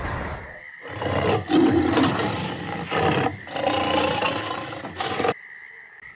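A big cat, such as a lion or tiger, roaring in a run of several calls that cuts off abruptly a little past five seconds in.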